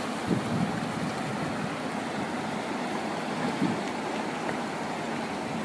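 Fast mountain river rushing over rocks: a steady hiss of running water, with two brief low thumps.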